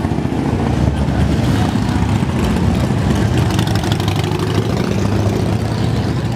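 Several large touring motorcycles riding slowly past one after another, their engines running with a loud, low, uneven beat.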